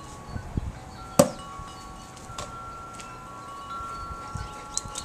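Wind chimes ringing, several clear tones held for seconds and overlapping. A sharp knock about a second in is the loudest sound, with a few soft thumps just before it.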